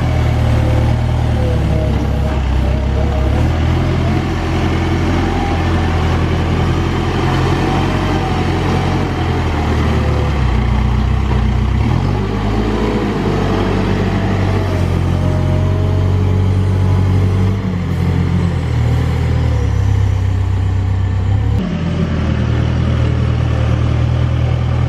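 Case 580 Super N backhoe loader's diesel engine running loudly, its speed rising and falling several times as the operator works the machine, with a wavering higher whine over it.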